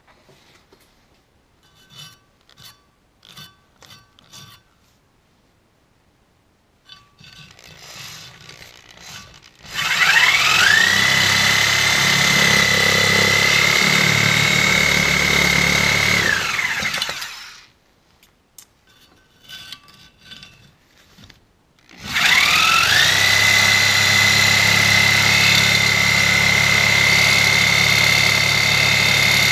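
Reciprocating saw with a bimetal blade cutting cast iron. For the first few seconds there are only faint clicks and handling sounds. About ten seconds in the saw winds up to a steady high whine over a rough rattle, runs for about seven seconds, then winds down and stops. After a few more clicks it starts again and keeps cutting.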